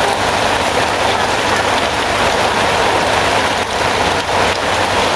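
Steady rain falling: a dense, even hiss with a few sharper drop ticks.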